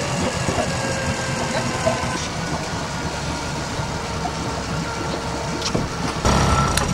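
Small outboard motor idling steadily, growing louder about six seconds in.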